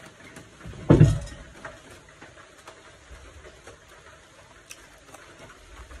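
Close-up eating sounds: small clicks of chewing with a mouthful of food. About a second in there is one loud knock or crunch. Behind them, light rain patters steadily on the roof.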